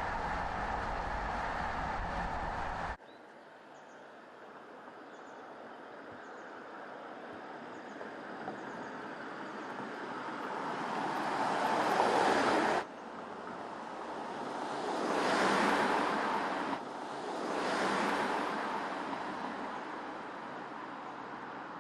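Steady road and wind noise for about three seconds, then after a sudden cut, a car driving past several times, its tyre and engine noise swelling up and fading away, once cut off abruptly.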